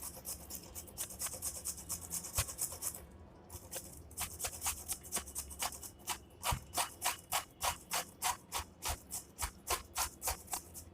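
Peeled ginger being grated on a hand grater: a steady run of short rasping strokes, about two to three a second, with a brief pause about three seconds in.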